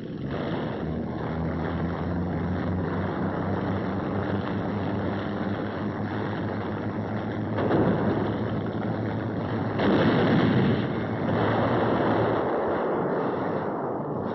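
Landing craft engines droning steadily with rushing water and wind. The sound swells louder twice, a little past the middle.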